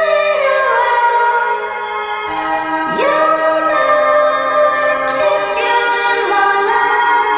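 Music: a song with long held sung notes that slide from one pitch to another.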